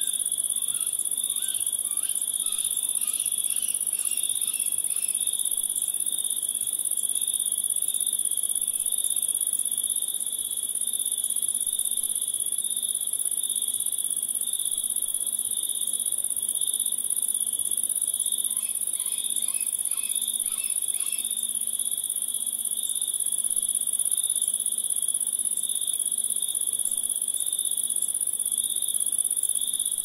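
A steady, high-pitched chorus of insects shrilling without a break. Short runs of quick chirps come over it twice, near the start and again about two-thirds of the way through.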